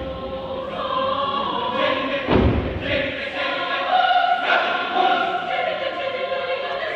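Mixed adult choir singing held chords in several parts, with one low thump about two and a half seconds in.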